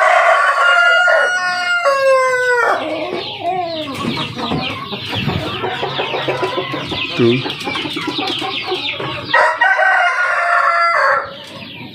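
A rooster crows twice, once at the start and again near the end, its long call falling away at the close. Between the crows a flock of chickens clucks continuously.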